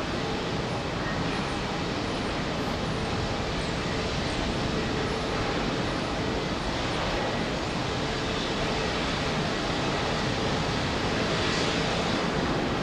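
Steady rushing of strong wind on the microphone, mixed with the jet engine noise of a Boeing 787 Dreamliner coming in to land.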